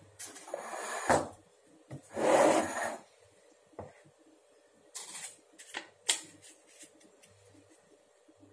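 Kitchen items being handled on a countertop. A plastic mixing bowl and a metal cupcake pan slide and scrape across the counter in two noisy bursts, the second and louder one about two seconds in. Then come a few light clicks and rustles as a paper muffin cup and a spoon are picked up.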